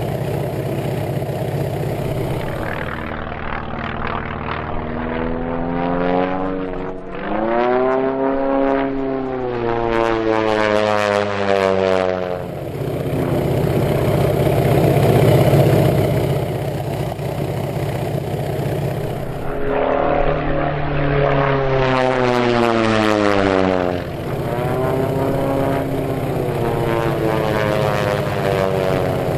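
Electric motor and propeller of a Durafly Brewster Buffalo foam RC model warplane in flight: a propeller buzz whose pitch sweeps up and down several times over a steady rush of air.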